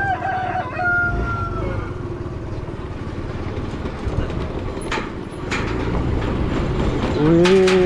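Scooter riding across a steel-decked suspension bridge: the small engine runs steadily under a rattling clatter from the deck slats beneath the wheels, with a few sharp metallic clanks about five and seven seconds in.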